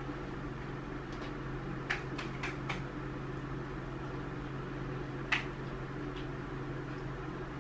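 Steady low mechanical hum of a small room, with a few faint clicks two to three seconds in and one sharper click a little past five seconds.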